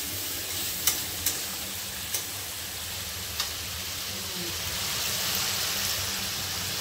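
Diced potatoes, onions and tomatoes sizzling in oil in a steel kadai while a flat metal spatula stirs them, clinking sharply against the pan four times in the first few seconds. The sizzle grows a little louder about five seconds in.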